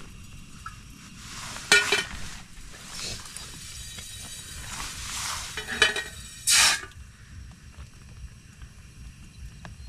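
Cookware and a plastic water bottle handled over a lit gas-canister camping stove that burns steadily. There are short loud clinks and crackles about two seconds and six seconds in, then water is poured into the pot near the end.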